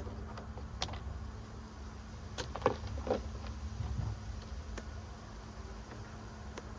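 A few sharp knocks and clunks, the loudest about two and a half seconds in, with a duller thump about a second later, over a steady low hum.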